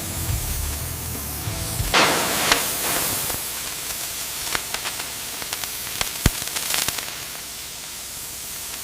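Plasma cutter cutting steel: a sudden loud start, then a steady hiss with scattered sharp crackles and pops, after a couple of seconds of music.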